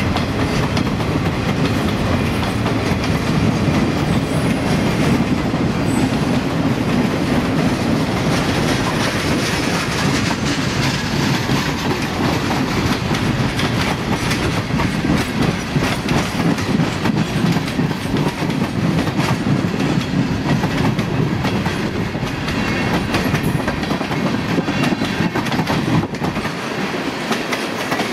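Freight cars (boxcars, then tank cars) rolling past, a steady rumble of steel wheels on rail with a running patter of clicks as the wheels cross rail joints.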